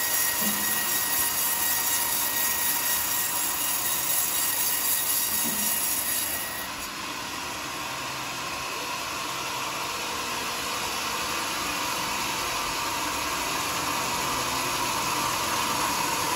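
Homemade band sawmill running, its blade cutting through a teak log with a steady, loud hiss. About six seconds in the high hiss drops away and the saw runs on a little quieter, then slowly grows louder again toward the end.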